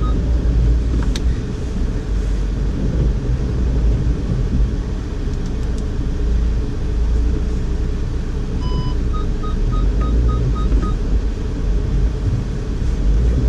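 2012 Audi A4 Quattro's turbocharged four-cylinder engine running with a steady low rumble as the car, traction control switched off, struggles through deep snow and gets stuck. About nine seconds in, a short dashboard chime sounds, followed by about two seconds of quick electronic beeps.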